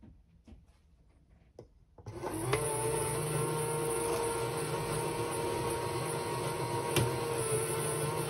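A LEGO Technic marble-machine module's electric motor and gear train start up about two seconds in and then run with a steady whine. Its moving parts click sharply twice. Faint ticks come before the motor starts.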